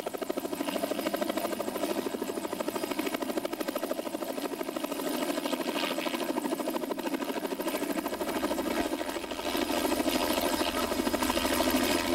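Helicopter hovering low with its rotor beating rapidly and steadily. It grows louder about nine and a half seconds in as it takes up a sling load and lifts away.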